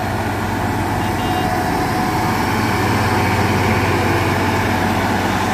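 Caterpillar 140G motor grader's six-cylinder diesel engine running steadily under load as the grader drives along, its blade spreading and mixing granular subbase gravel.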